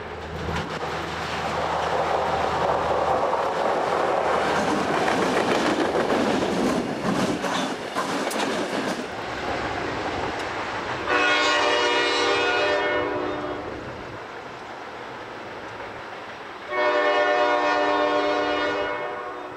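Norfolk Southern diesel locomotives passing, engines running and wheels on the rail with rapid clicking over the joints, the noise fading as they pull away. A locomotive horn then sounds two long blasts, about 11 seconds in and again near the end.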